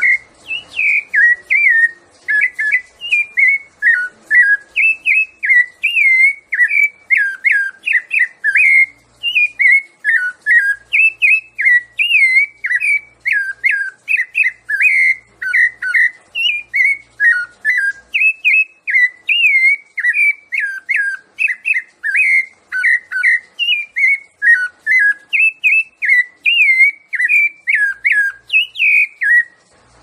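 Rufous-bellied thrush (sabiá-laranjeira) singing a long unbroken run of clear whistled notes, about three a second, in the song style known as 'piedade Senhor'.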